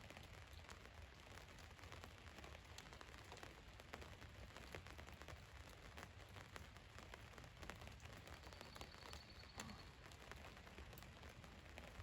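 Rain falling on a van's roof, faint: a steady hiss with scattered individual drop ticks over a low rumble.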